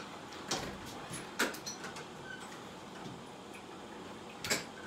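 A few short, sharp clicks and knocks, three of them spread over the few seconds, over faint room tone.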